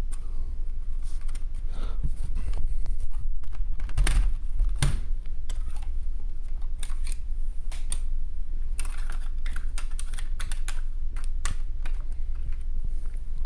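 Irregular small clicks and knocks of a ThinkPad T430 laptop's plastic and metal parts being handled during disassembly, as the SSD drive bay is worked out of the chassis. A steady low hum runs underneath.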